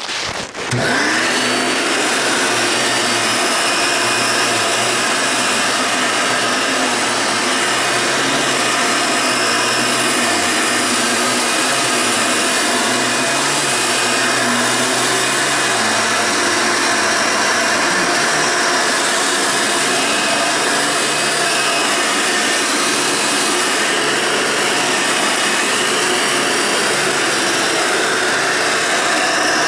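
1990s Hoover Elite vacuum cleaner switched on about a second in, then running loud and steady.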